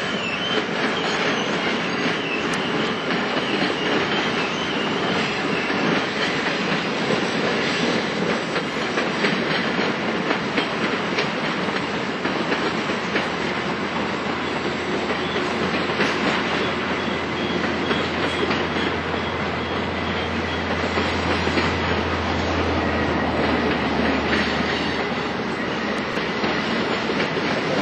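A long freight train rolling by with steady wheel-on-rail clatter and a faint, thin wheel squeal on the curving track. A low hum builds about twenty seconds in and fades a few seconds later.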